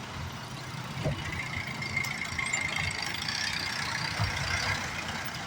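Road traffic: a steady rumble of passing vehicles and trucks, with a faint high whine in the middle.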